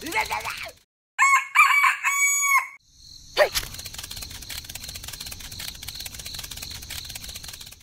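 A rooster crowing once, about a second in, in a loud pitched cock-a-doodle-doo of a few joined parts. From about three and a half seconds a quieter steady noise with fine ticking follows.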